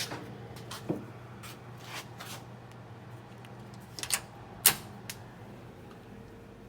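Scattered clicks and knocks as the door of a converted kitchen oven is worked open, the loudest a sharp clack about two-thirds of the way through, over a faint steady hum.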